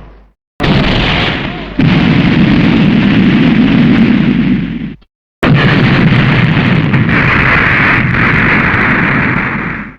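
Two explosion sound effects from Showa-era tokusatsu films, one after the other with a short silence between. Each starts suddenly and rumbles for about four seconds before fading; the first swells again about a second after it starts.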